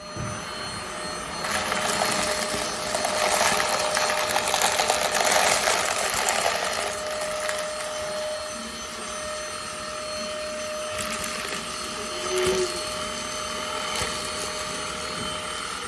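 SilverCrest cordless handheld cyclone vacuum switched on and running: a rush of air with a steady tone in it. The rush grows louder for a few seconds soon after it starts, then settles.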